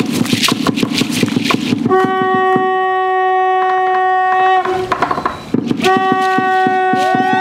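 Rapid drumbeat on a wooden drum struck with a stick, then a blown horn sounding two long, steady notes on the same pitch, each two to three seconds long with a short break between, while the drum keeps beating.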